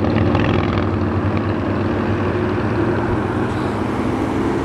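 Aircraft flying overhead: a steady engine drone with a low hum that holds at the same pitch.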